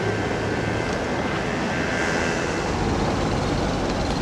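Steady rumble of passing road traffic mixed with wind on the microphone.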